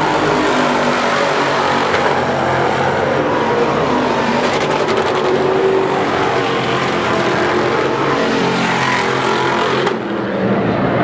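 Dirt-track modified race cars' V8 engines running hard as they lap the oval, several engines overlapping, their pitch rising and falling as cars pass. The sound dips briefly near the end.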